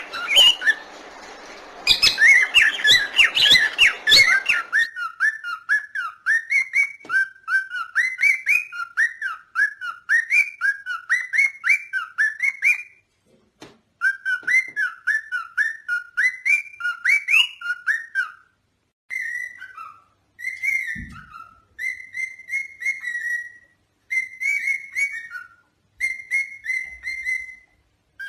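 Parrots calling: a lovebird's rapid chirping for the first few seconds, then a clean whistled phrase of quick rising and falling notes, repeated over and over in runs with short pauses between them.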